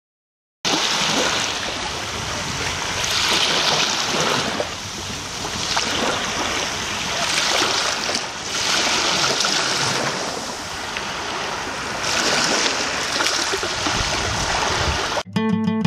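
Sea surf washing onto a beach, swelling and easing in slow surges every few seconds; it starts suddenly about half a second in. Near the end it gives way abruptly to acoustic guitar.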